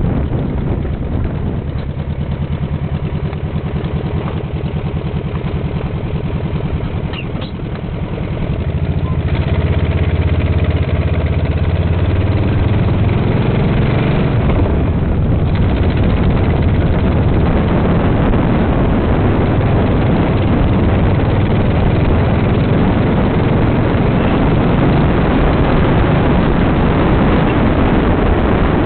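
Dune buggy engine driving over sand: it eases off around seven seconds in, then revs up again about nine seconds in and runs on steadily under load.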